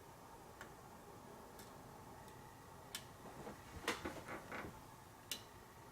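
Faint, irregular metallic clicks and scrapes of a lock pick raking and lifting the pins of a pin-tumbler lock held under tension. A cluster of louder scratchy clicks comes just past the middle.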